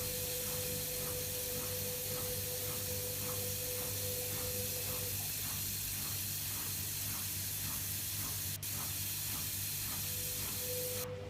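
Beko washing machine running: a steady rushing hiss of water flowing in, over a low hum and a quick, regular faint pulsing of about three a second. The hiss cuts off suddenly near the end, as when the water inlet shuts.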